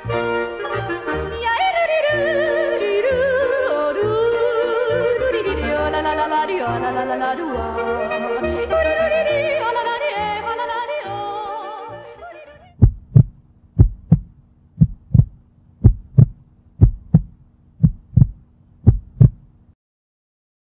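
Yodeling song with instrumental accompaniment, its warbling voice fading out about twelve seconds in. A heartbeat sound effect follows: double thumps about once a second over a steady low hum, stopping shortly before the end.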